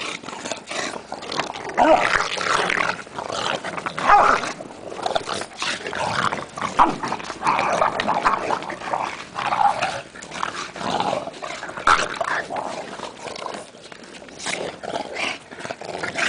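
Bulldogs and a mastiff play-fighting, their growls and yips coming in short, irregular outbursts, with a quieter lull near the end.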